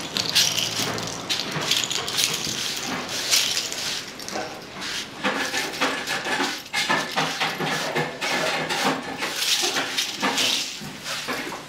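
Broom sweeping broken clam shells and shell fragments across a concrete floor: repeated scraping strokes with the shells rattling as they are pushed along.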